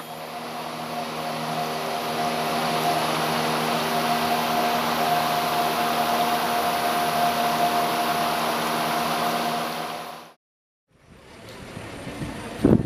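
Boat motor running steadily, fading in over the first couple of seconds and dying away about ten seconds in.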